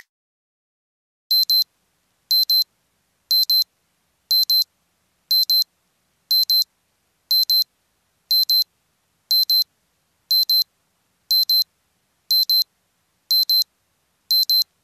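Countdown timer's end alarm: digital alarm-clock beeping, a high-pitched double beep repeated once a second, starting about a second in after a faint tick.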